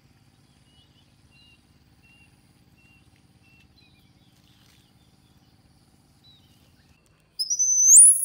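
Baby monkey giving one short, loud, high-pitched squeal near the end that rises steeply in pitch. Before it there are only faint scattered chirps.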